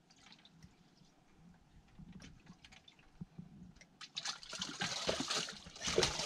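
Water splashing in a boat's livewell as a hand grabs a bass in it. Faint drips and light ticks at first, then splashing that starts about four seconds in and is loudest near the end.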